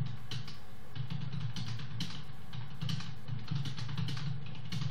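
Fast typing on a computer keyboard: a quick, uneven run of key clicks, several a second, with a steady low hum underneath.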